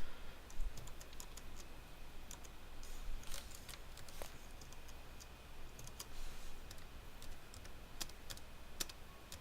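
Irregular, scattered keystrokes and clicks on a computer keyboard, over a low steady hum.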